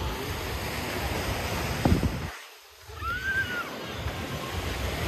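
Sea surf washing onto the beach, mixed with wind buffeting the microphone. The low rumble drops away briefly just past the middle.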